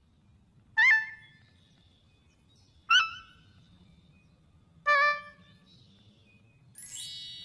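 Three short, piping whistle-like notes about two seconds apart, each with a quick upward scoop at the start and each at a different pitch. Near the end comes a bright, ringing chime-like tone that slowly fades.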